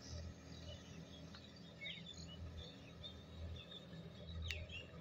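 Faint, distant drone of a Sonalika DI-50 RX tractor's diesel engine pulling a rotary tiller through a paddy field, with birds chirping over it.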